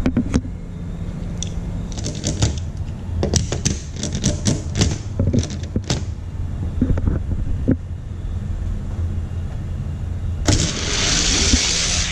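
Scattered plastic clicks and taps as die-cast toy cars are handled and set into the starting gate of an orange plastic Hot Wheels track. From about ten and a half seconds in comes a steady rolling hiss as the two cars race down the track. A low hum sits underneath.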